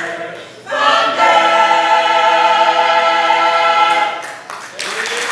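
Mixed choir of women's and men's voices singing, holding one long final chord of a gospel spiritual for about three seconds before it fades; applause breaks out near the end.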